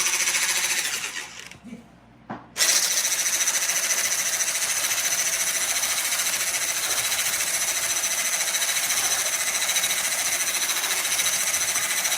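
Electric mixer running at speed, beating brown sugar into eggs for a bar batter; it stops briefly, starts again about two and a half seconds in, and runs steadily.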